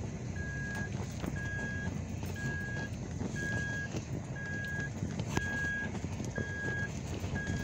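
A Toyota 4Runner's cabin warning chime beeping steadily, about once a second, over the low rumble of the truck driving over rough ground, with a sharper knock about five seconds in.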